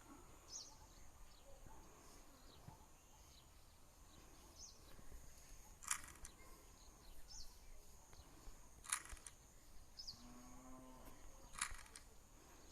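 Faint, sparse plastic clicks of a Rubik's cube's layers being turned, a few sharp clicks several seconds apart over near-silent room tone. A faint short low tone sounds once, about ten seconds in.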